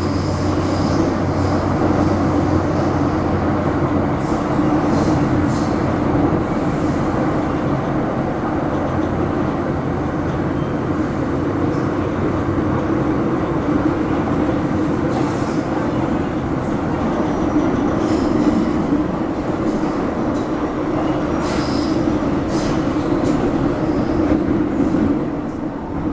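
MTR Metro Cammell M-Train EMU motor car running at speed between stations, heard from on board: a steady rumble of wheels on rail and running gear. A low hum stops about four seconds in, and brief high squeals come through now and then.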